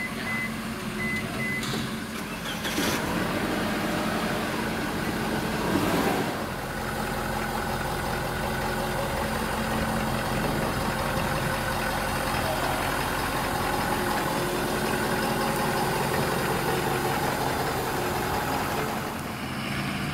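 Ford F550's 6.7-litre Power Stroke turbo diesel V8 running steadily. A few short high beeps sound in the first two seconds, and the engine briefly swells louder around 3 and 6 seconds in.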